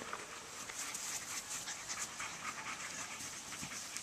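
Boxer puppy panting in quick, short breaths, hot and worn out from play.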